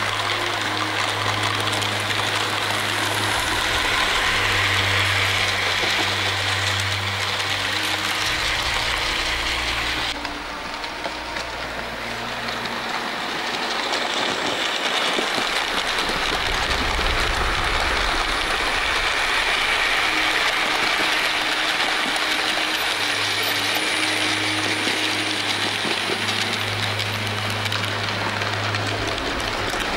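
OO gauge model trains running on the layout: a steady rolling rattle of small wheels on the rails with a low hum underneath. About ten seconds in the sound changes abruptly and drops a little, then builds back up as trains pass again.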